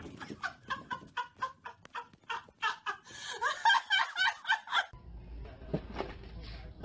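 A person laughing hard in rapid, high-pitched, breathy bursts that come faster and higher toward the middle. About five seconds in the sound cuts to a quieter scene with a low hum and a soft knock or two.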